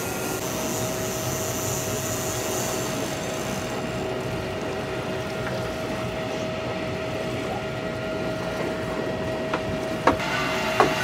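Steady running noise of a sportfishing boat's engines and the water, with a steady hum throughout. Near the end come a few sharp knocks as rods are handled in their metal holders.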